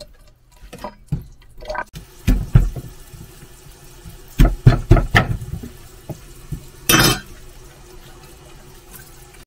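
Kitchen tap running into a stainless steel sink, with a series of sharp knocks as a knife chops through an ear of corn onto a wooden cutting board, several close together around the middle. A brief louder burst of noise follows a couple of seconds later.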